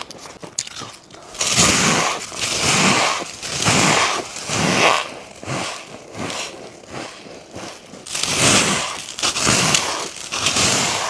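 Humidifier-made freezer frost crunching as it is bitten and chewed, in several bursts about a second long with short pauses between them.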